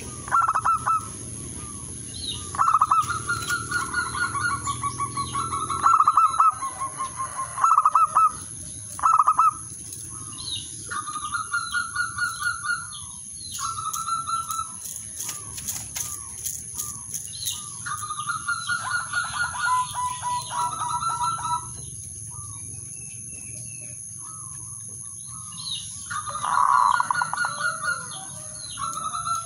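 Male zebra doves cooing: phrase after phrase of quick, rolling staccato coos, the song a male uses to call out rivals. A brief burst of wing flapping comes about 14 seconds in.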